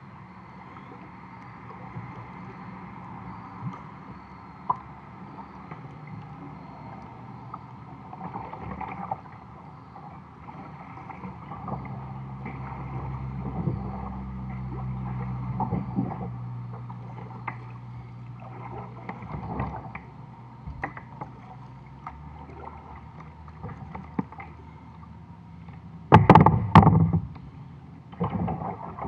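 Water sloshing against a plastic kayak hull as the kayak moves along, with scattered light knocks on the hull. Near the end comes a loud burst of knocking on the hull, then a smaller one.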